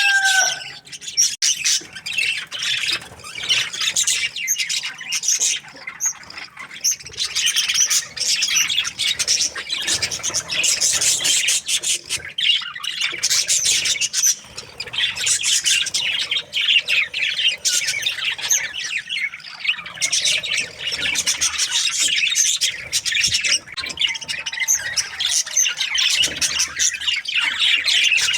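A flock of budgerigars chattering and squawking continuously, many short high-pitched calls overlapping. About 24 seconds in, a faint, longer, falling call sounds beneath them.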